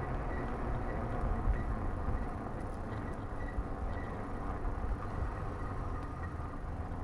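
Steady wind rumble on the microphone and tyre noise from an electric fatbike rolling over paving blocks while riding.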